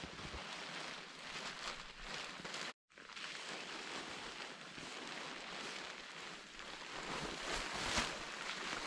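Rustling and crinkling of nylon tent fabric and gear being handled while a tent is pitched on snow, a steady scratchy rustle with a few louder crackles, one of them near the end. It cuts out completely for a moment about three seconds in, then carries on.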